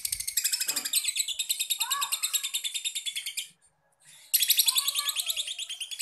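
Young lovebird giving its 'ngekek': a long, very fast, high-pitched chattering trill. It breaks off a little past halfway for under a second, then starts again.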